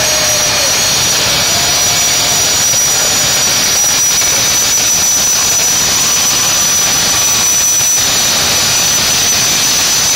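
Two jet-powered drag cars' turbine engines running at high power on the starting line with afterburners lit: a steady loud jet rush topped by a high, steady turbine whine.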